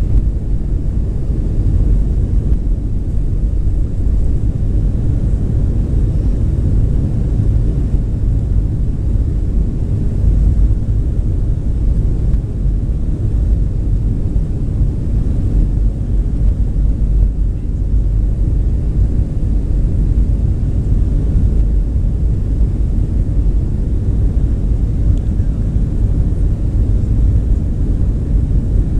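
Cabin noise inside a Boeing 737-800 beside the wing: a steady low rumble as the jet rolls along the runway on the ground.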